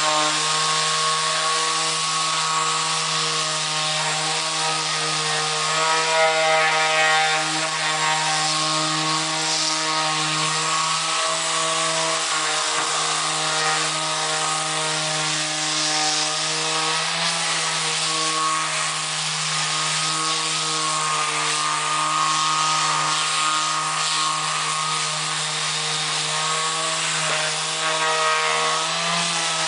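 Bosch GSS 280 AE orbital sander running and sanding: a steady motor hum under the hiss of the abrasive pad on the work. The pitch wavers briefly a couple of times as the load changes.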